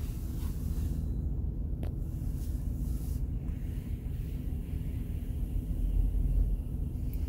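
Steady low rumble of a Wash World Razor touchless car wash running, heard muffled from inside the vehicle's cabin, swelling briefly about six seconds in.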